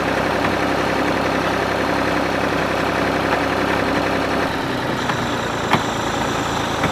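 Tractor engine running steadily at idle, with two short sharp clicks in the last couple of seconds.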